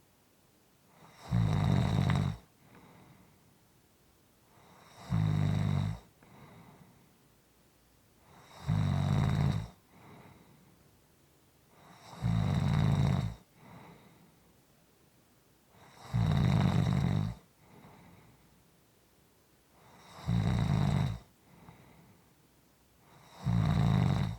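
Snoring: a loud snore about every four seconds, seven in all, each lasting about a second, with a soft breath in between.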